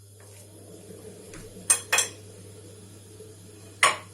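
Metal utensil clinking sharply against a frying pan three times, twice close together and once near the end, over the steady hum of a kitchen range hood fan.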